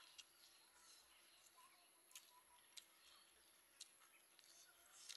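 Near silence: quiet outdoor ambience with a few faint, scattered clicks and short faint chirps.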